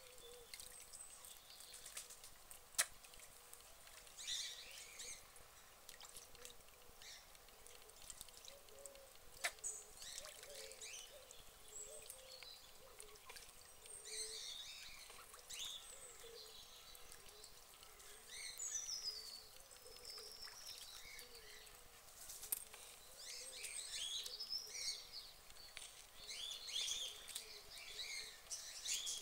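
Songbirds chirping and singing in the background, more busily near the end, over a faint trickle of water. Two sharp clicks stand out, about three seconds in and again near ten seconds.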